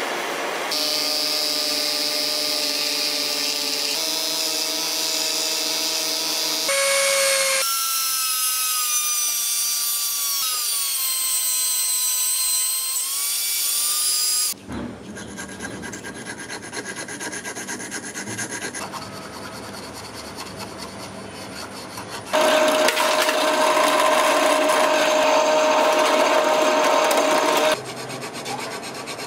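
A small rotary tool with a cut-off disc whining as it cuts a slot into a copper fitting held in a vise, its pitch dipping and recovering as the disc bites. Near the end, a needle file rasping back and forth in the cut slot.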